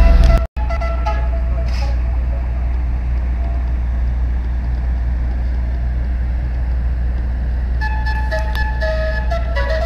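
A boat-mounted array of horns and sirens sounding held notes over a steady low rumble. The sound cuts out for an instant about half a second in. The horns then mostly fall away, and several notes start again near the end.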